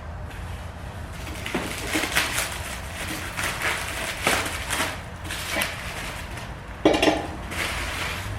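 Irregular handling noises: scraping, rustling and a series of sharp knocks and clinks as forge parts are moved and fitted, with a louder knock about seven seconds in.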